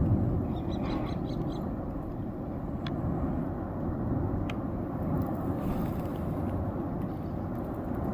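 Volcanic eruption heard at a distance: a continuous deep rumbling roar from the erupting vent, steady throughout, with a couple of faint ticks.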